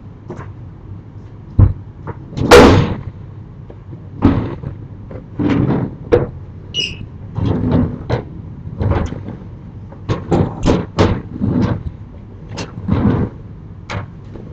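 Sliding storm shutters (amado) being run along their tracks and knocked into place: a string of irregular rumbles and bangs, the loudest about two and a half seconds in, with a brief high squeak midway.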